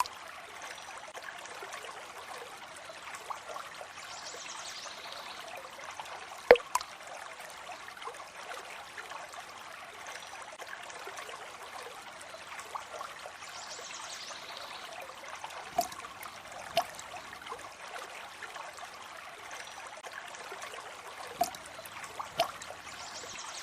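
Water trickling steadily, with single drops plinking now and then: one sharp drip about six seconds in, then two pairs of drips later on.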